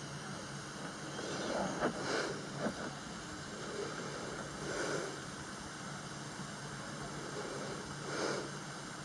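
A sleeping person's noisy breathing, a slow breath swelling and fading about every three seconds, over a steady hiss, with a couple of small clicks about two seconds in.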